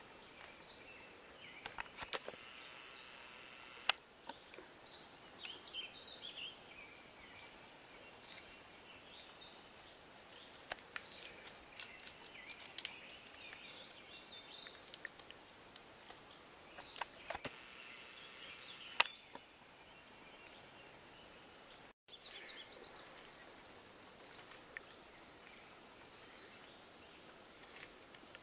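Faint outdoor ambience of songbirds chirping and whistling in short, scattered calls, thinning out after about two-thirds of the way through. A few sharp clicks stand out, the loudest about four seconds in and again near nineteen seconds, with brief high hiss around them.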